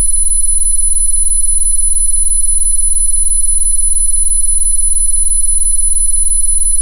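Synthesized frequency tones: several steady electronic tones held together, the loudest a very high-pitched whine, over a low hum, with a faint fast flutter in the middle.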